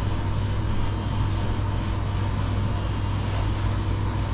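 Steady low machinery hum under an even rush of air, the constant background drone of a ship's onboard machinery and ventilation.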